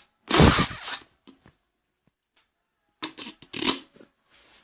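Close rustling and scraping, loudest in a short burst just after the start, with a second, quieter bout about three seconds in.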